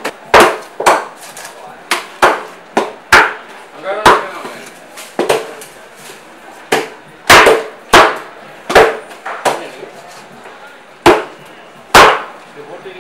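Heavy cleaver-type knife chopping through tuna and striking the cutting board. The hard chops come irregularly, about one or two a second, some in quick pairs.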